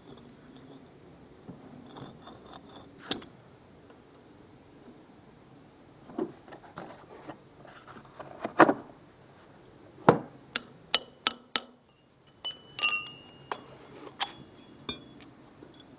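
Metal tool clinks and knocks as a steel drill bit and an electric drill are handled and put down, with a quick run of short ringing chinks from about ten to thirteen seconds in.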